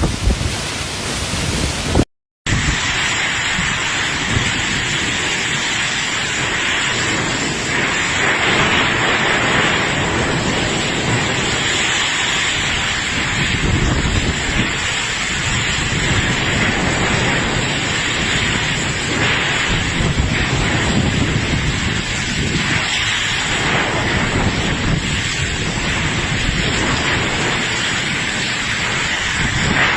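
Heavy rain and strong cyclone wind, a loud steady downpour with wind buffeting the microphone. The sound cuts out completely for a moment about two seconds in.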